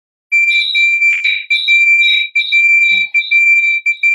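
Audio feedback: a loud, high-pitched whistling squeal that cuts in and out irregularly, from two devices joined to the same live stream in one room.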